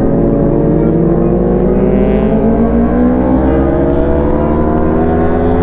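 CFmoto NK400's 400 cc parallel-twin engine under way, its note climbing steadily as the bike accelerates.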